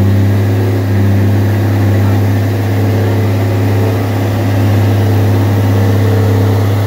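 Renault truck's diesel engine running hard at a steady speed, with a deep, even drone, as the truck pulls through deep mud.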